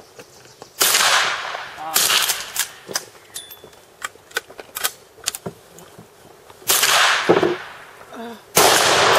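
Four rifle shots, two about a second apart near the start and two more later, each cracking sharply and dying away in a ringing echo, with fainter sharp clicks between them.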